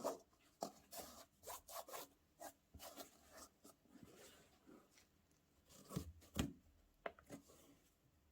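Sneakers and their packaging being handled: a run of short, irregular rustles and scrapes, with two soft thumps about six seconds in.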